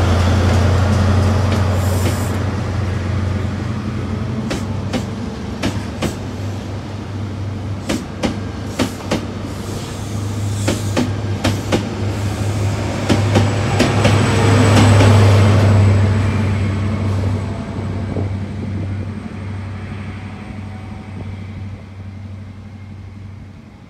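InterCity 125 HST with Class 43 diesel power cars running past and away. The diesel engine drone is strong at the start, then come sharp clicks of wheels over rail joints as the coaches pass. The rear power car's engine is loudest a little after halfway, then the sound fades away.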